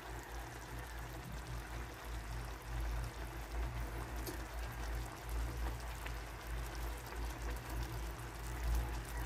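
Sprite-and-oyster-sauce braising liquid sizzling and bubbling in a wok as it reduces nearly dry around a whole chicken, while a spoon bastes the sauce over it. A steady low hum runs underneath.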